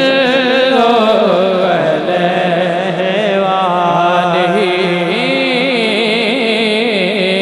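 A man singing a devotional naat-style kalam through a microphone, drawing out long held notes with wavering, ornamented pitch.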